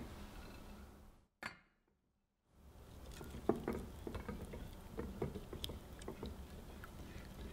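Wire balloon whisk stirring a runny egg, sugar and milk mixture in a glass bowl set over a pot of hot water, its tines clicking and scraping against the glass with a light slosh of liquid. The batter is being warmed this way to about 53 °C before whipping. The sound breaks off for about a second a little over a second in.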